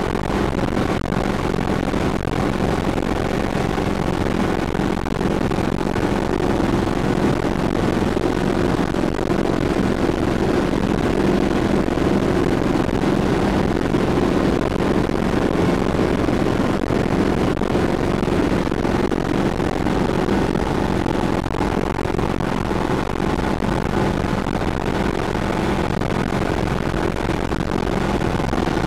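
Hughes 300 helicopter in flight, heard from inside its cockpit: the steady drone of the piston engine and rotor, with a low hum under broad cabin noise that does not change.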